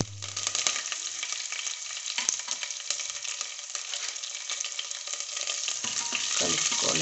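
Tempering crackling and sizzling in hot oil in a pressure cooker: cumin and mustard seeds spluttering, with chopped garlic, curry leaves and dried red chillies just added. A steady crackling hiss full of small pops, with a spoon stirring the pot near the end.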